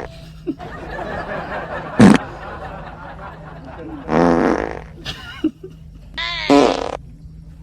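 Fart sounds: two drawn-out, wavering ones, about four seconds in and again near six seconds, over a steady low hum. A sharp knock about two seconds in is the loudest sound.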